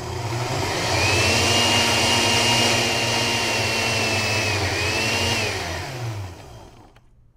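Countertop blender running, blending yogurt, bananas and frozen fruit into a smoothie. Its motor whine climbs about a second in, breaks briefly, then winds down and stops about a second before the end.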